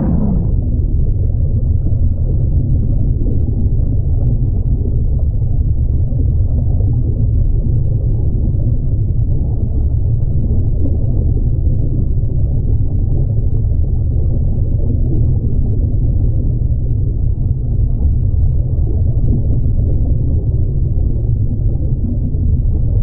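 Steady, muffled low rumble of water rushing past an underwater camera on a moving canoe, with no distinct paddle strokes standing out.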